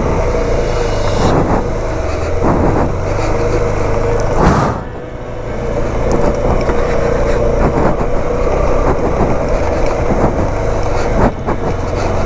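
Motorcycle engine running while under way, with a steady low note. The sound eases off briefly about five seconds in, then picks up again.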